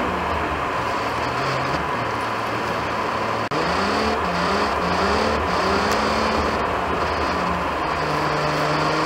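Car engine and road noise heard from inside the cabin while driving slowly, the engine pitch rising and falling with throttle and gear changes. The sound briefly drops out about three and a half seconds in.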